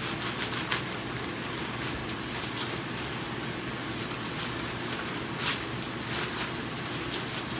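Plastic spawn bag crinkling and rustling as it is rubbed down with an isopropyl-soaked paper towel, in short irregular crackles with the sharpest about five and a half seconds in, over a steady hiss.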